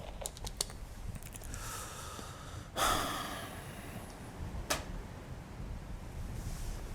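A person draws a breath and lets out a heavy sigh about three seconds in, fading over about a second. A few faint clicks and a low steady rumble run underneath.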